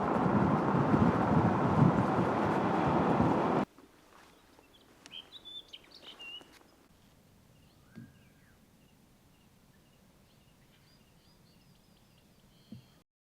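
Heavy wind buffeting the microphone, which cuts off abruptly about three and a half seconds in. Then a quiet stretch with faint bird chirps and short whistled calls now and then.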